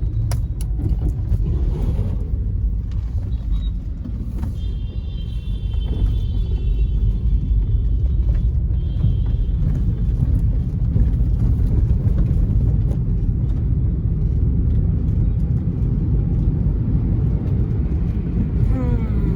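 Steady rumble of a car's engine and road noise, heard from inside the cabin while driving. A brief high-pitched tone sounds twice, from about four and a half seconds in and again around nine seconds.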